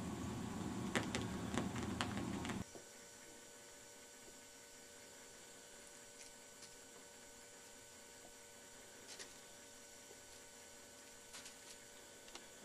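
Steady low electrical hum with a few faint clicks. For the first two and a half seconds a louder rumbling noise with several sharp clicks covers it, then cuts off abruptly.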